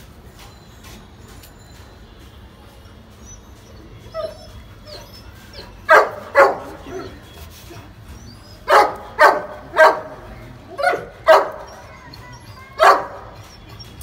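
A dog barking in short runs of two or three barks, about eight barks in all, starting about six seconds in.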